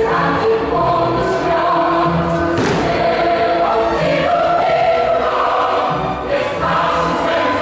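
A choir singing a polonaise, played as dance music, steady and loud.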